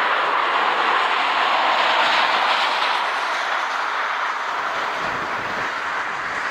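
Steady jet-engine noise from an Airbus A320-214's CFM56 turbofans running at low thrust as the airliner taxis, easing slightly about five seconds in.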